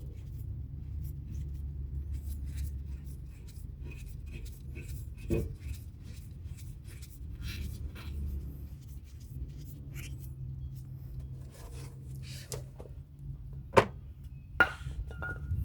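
Brake parts being handled by hand: light rubbing, scraping and small clicks, with two sharp clicks near the end, over a steady low hum.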